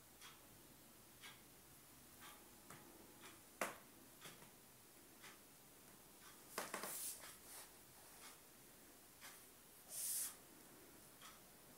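Near silence: room tone with faint scattered clicks, the sharpest about three and a half seconds in, a short cluster of handling noises near the middle and a brief hiss around ten seconds in.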